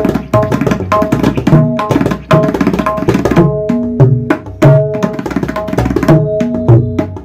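A tabla pair played in a fast, dense run: the dayan, tuned to A-sharp, rings with a clear steady pitch, and the bayan's bass strokes bend up and down in pitch. It is a tone check of a newly made tabla whose syahi is not yet fully finished.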